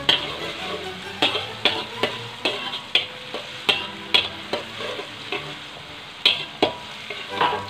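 Slotted metal spatula scraping and tapping against a metal wok in irregular strokes, roughly two a second, while chopped garlic and onion sizzle in hot oil. The aromatics are being sautéed until they brown.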